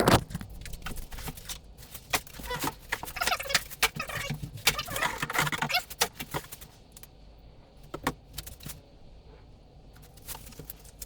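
Cardboard box and packaging rustling, scraping and knocking as a table saw is wrestled out of its box, with a loud knock at the start. The handling is busiest for about the first six seconds, then dies down to a few scattered clicks.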